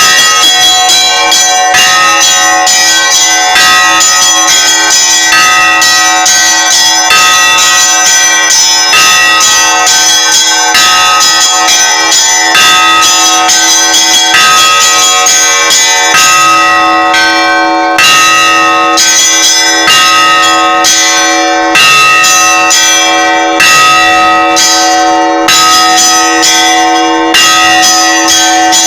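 Orthodox church bells rung together in a festal peal: small bells struck rapidly over the steady hum of a mid-sized bell. From about halfway through, a heavier stroke comes in on an even beat about every two seconds.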